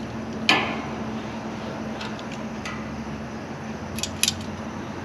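Metal spatula scraping and clinking on the hot steel top of a Blackstone griddle while spreading seasoning oil. There is one loud clink about half a second in and two sharp clicks near four seconds, over a steady low hum.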